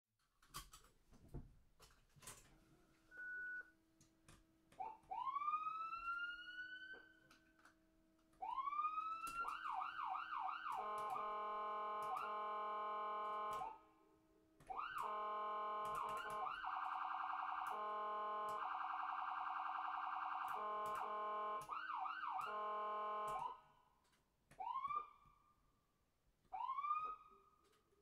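Electronic ambulance siren cycling through its tones. It gives long rising whoops, a fast yelp of repeated sweeps, a steady buzzing tone, and a rapid warble, then single rising whoops near the end.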